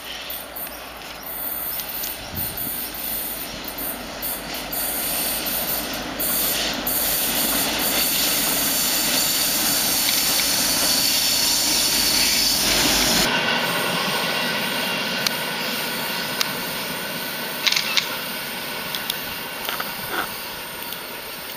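ST44 (M62-type) diesel-electric locomotive's two-stroke V12 engine running as it approaches hauling a freight work train, together with the noise of wheels on the rails. It grows louder toward the middle, then changes abruptly about two-thirds through to a steadier, lighter sound with a few clicks.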